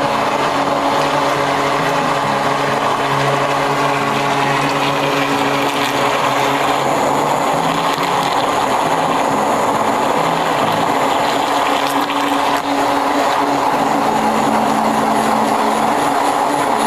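Electric immersion stick blender running steadily in a measuring jug, puréeing cooked peppers into a fine cream. Its motor pitch wavers a little as it is worked through the mixture.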